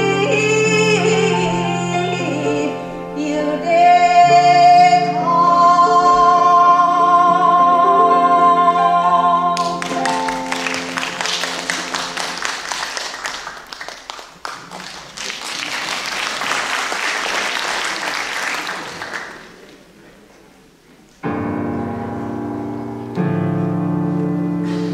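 Ginei-style singing in long wavering notes over keyboard accompaniment. About ten seconds in, the music gives way to roughly nine seconds of dense noise that fades out. After a short dip, sustained keyboard chords start again near the end.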